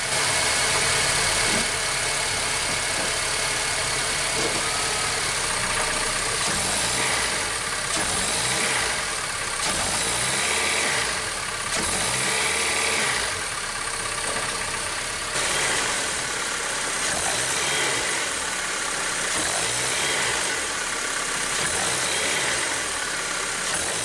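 2006 Honda Civic's 1.8-litre R18A1 four-cylinder engine running in drive against the brakes, revved and eased off several times. This is a brake torque test that loads the engine to expose a broken side engine mount.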